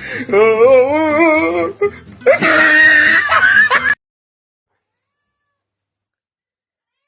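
A domestic cat's long meow with a wobbling pitch, followed by a louder, harsher yowl. The sound cuts off abruptly about four seconds in.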